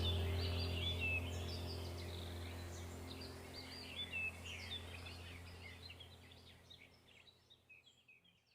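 Small songbirds chirping and twittering rapidly over a steady low hum, the whole soundtrack fading out gradually toward the end.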